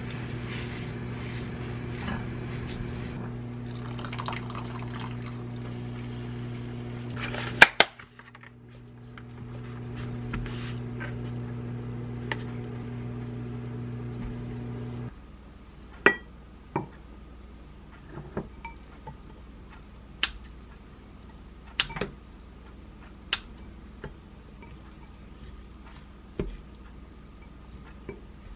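A steady low hum, broken by one loud clatter about a quarter of the way in, cuts off about halfway through. Then a wooden spoon knocks against a glass mixing bowl, a sharp tap every second or two, as rice and chicken are stirred.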